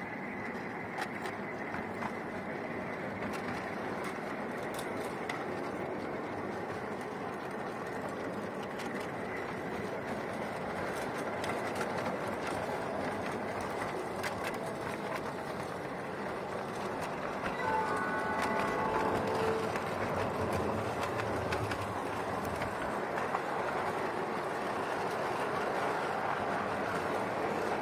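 Ride-on 5-inch gauge miniature train running along its track, heard from one of its riding cars: a steady rumble of wheels with scattered clicks over the rail joints. The rumble grows a little louder about two-thirds of the way through, when a short pitched whine sounds.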